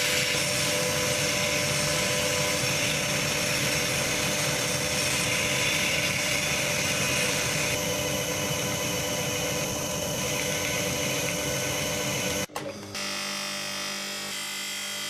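Jackhammer with a freshly ground chisel bit hammering continuously into pork belly. About twelve and a half seconds in it cuts off abruptly and a quieter, steadier machine sound follows.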